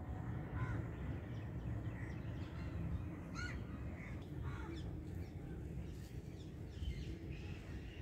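Birds calling: a scatter of short, curved chirps and calls over a steady low rumble.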